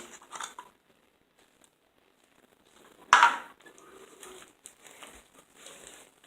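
A cracked bowl being handled, with light crinkling and crackling and one sharp crack or knock about three seconds in.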